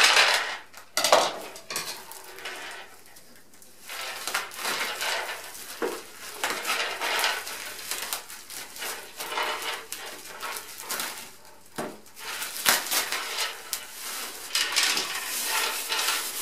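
Plastic packaging crinkling and rustling as wrapped parts are handled and unwrapped, with a few sharp knocks of hard parts being set down.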